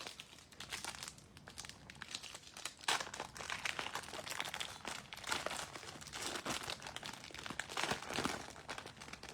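Panini Select trading card packs being torn open by hand, the wrappers crinkling and rustling in irregular spurts, loudest about three seconds in and again near the end.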